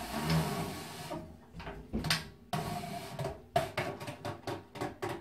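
Wooden circle jig being worked into the top of a sheet-metal stovepipe: rubbing and scraping at first, then a run of quick knocks and taps, several a second, over the last couple of seconds.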